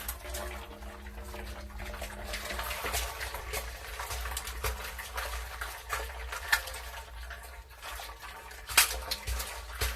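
Water splashing and trickling, with many small clicks and knocks and one sharper knock near the end.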